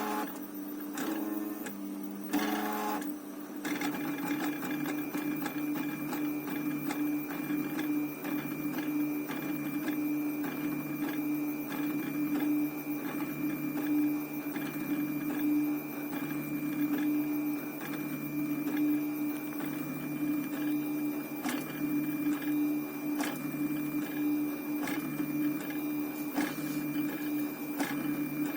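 Stepper motors of a homemade 3D printer built from old CD-drive mechanisms, whining as they drive the print head. For the first few seconds the pitch jumps in short steps; after that it settles into a steady whine with a faint high thin tone above it.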